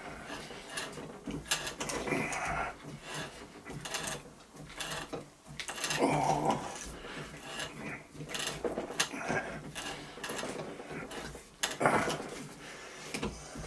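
Hand tap wrench turning a tap in stainless steel at a bench vise, with irregular metal clicks, clinks and scrapes of the tools being handled. Two louder clatters come about halfway through and near the end.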